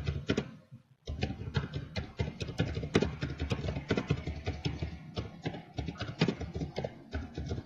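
Rapid typing on a computer keyboard: a quick run of key clicks, with a short pause about a second in.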